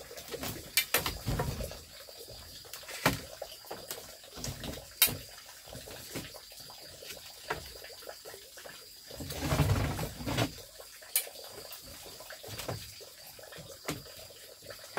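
Scattered sharp knocks and clicks, with a longer, louder swell of noise about nine to ten and a half seconds in.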